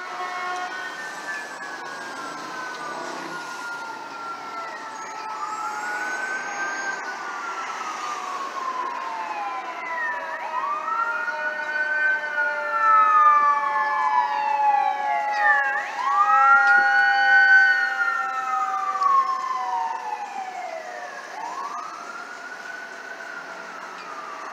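Fire apparatus siren wailing, rising and falling about every five seconds, together with a second, slowly falling siren tone. It grows louder toward the middle as the truck passes through traffic.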